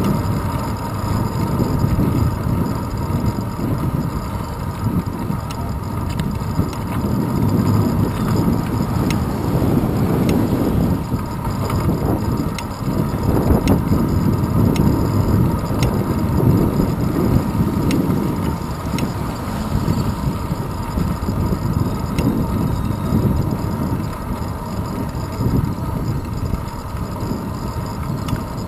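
Low, steady rumble of road vibration and wind buffeting on a handlebar-mounted GoPro camera on a bicycle riding on asphalt.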